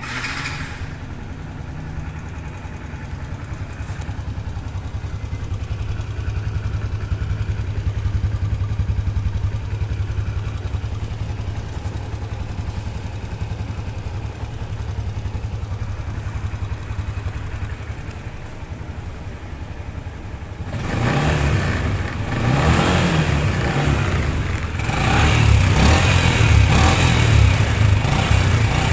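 Yamaha LC135's single-cylinder four-stroke engine idling steadily, then revved in repeated throttle blips from about twenty seconds in, growing louder.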